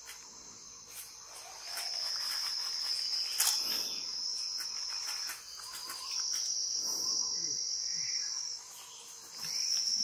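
Insects trilling in a steady high-pitched drone that swells louder three times: from about two seconds in, again around six seconds, and near the end. A single sharp click sounds in the middle.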